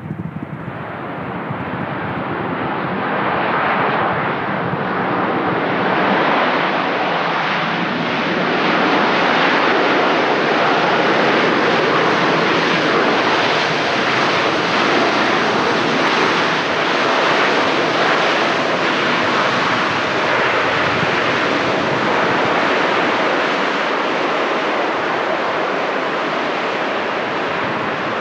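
Airbus A350-900's Rolls-Royce Trent XWB engines on the landing roll. Their noise swells over the first several seconds after touchdown into a steady, loud rush that eases slightly near the end.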